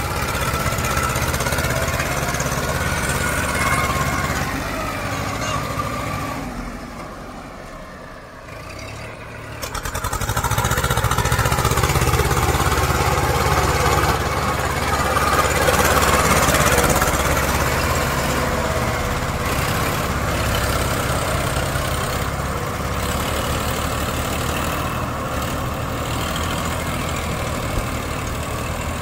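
Diesel engines of a Sonalika DI-740 and a Mahindra 255 tractor running hard under load, pulling an overloaded trolley through deep mud. The sound drops away for a few seconds about seven seconds in, then comes back louder.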